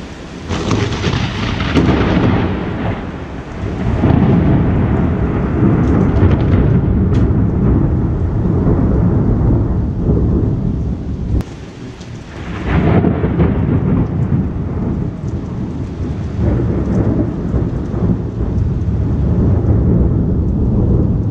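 Thunder: a crack about half a second in that rolls into a long low rumble, then a second crack about 13 seconds in that rumbles on, with rain falling throughout.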